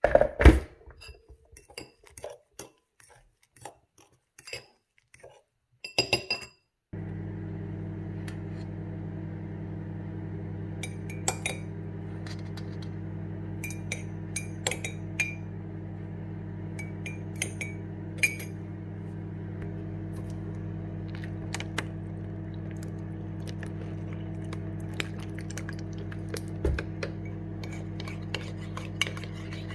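Metal spoon clinking and scraping against a ceramic bowl and mug while oats and powdered milk are stirred, in short separate clinks, the loudest right at the start. From about seven seconds in, a steady low hum runs under the clinks.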